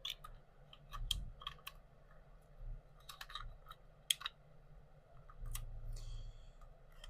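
Scattered light clicks and taps of small plastic items being handled: a wireless microphone set and its charging case being put back into their box.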